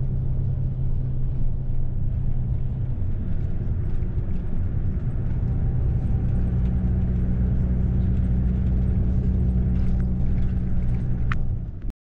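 Intercity coach's engine running as the bus moves off, heard from inside the cabin: a steady low rumble whose drone shifts in pitch a few seconds in and again around the middle.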